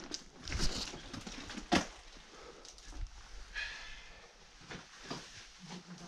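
Scattered scrapes and knocks of a caver clambering and crawling over limestone boulders, with one sharper knock a little under two seconds in.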